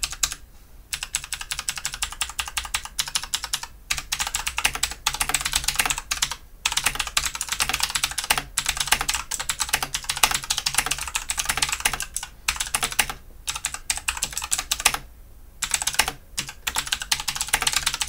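Abkoncore K660 full-size mechanical keyboard with Outemu switches typed on quickly with both hands: a dense clatter of key clicks, broken by a few short pauses.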